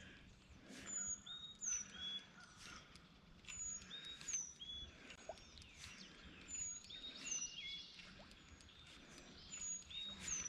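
Songbirds calling: short, high chirping notes repeating every half second to a second.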